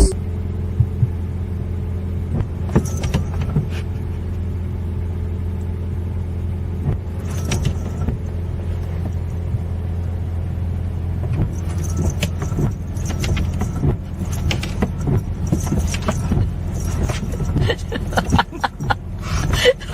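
A steady low motor hum, with light jingling and clicking that comes and goes, busiest in the second half.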